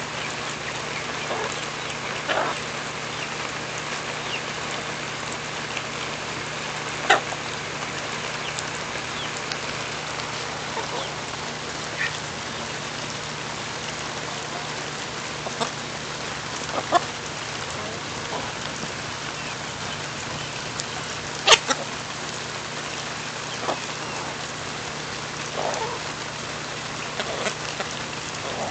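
Steady rain falling, with chickens feeding close by: a few brief clucks and several sharp taps, the loudest about three-quarters of the way through.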